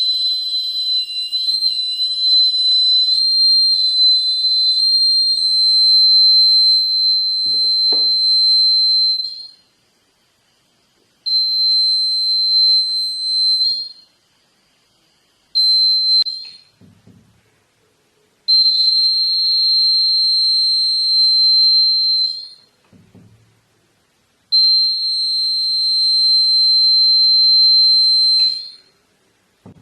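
Battery-powered buzzer of a homemade magnetic door alarm sounding a steady, shrill single tone, switching on and off five times: a long first stretch of about nine seconds, then shorter ones, as the alarm is triggered and reset.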